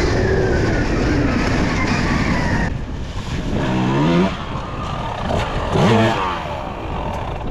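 Dirt bike engine running under riding load, then easing off, with a couple of short revs about four and six seconds in.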